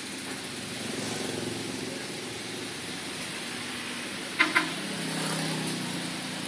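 Low engine hum over steady background noise, swelling twice, with two sharp clicks close together a little past the middle.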